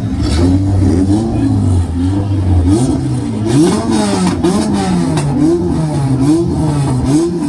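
Car engines at a drag strip start line being revved over and over, the pitch climbing and dropping in quick, regular blips as the cars wait to launch. A steady low engine hum runs under the revving for the first couple of seconds, then stops.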